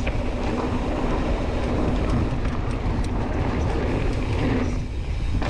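Wind rushing over a moving camera's microphone with a steady low rumble and scattered rattles and clicks, as from a mountain bike rolling fast down a dirt trail.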